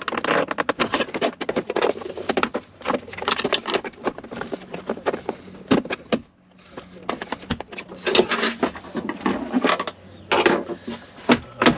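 Hard plastic rear cargo trim panel of a Jeep Wrangler JL being pried loose with a pry tool: a dense run of plastic clicks, scrapes and knocks as its clip tabs are worked free. There is a brief pause about six seconds in and two sharp clicks near the end.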